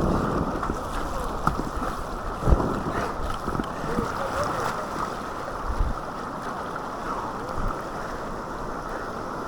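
River water rushing past a kayak, with wind buffeting the microphone. A few low thumps break through, the loudest about two and a half seconds in.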